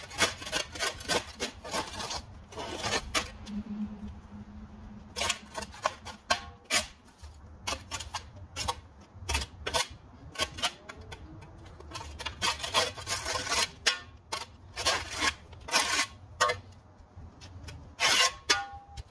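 Repeated rasping scrapes in irregular clusters of quick strokes, with no engine running.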